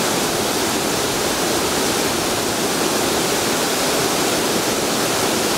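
Waterfall on Pendleton Creek: a steady, loud rush of falling water.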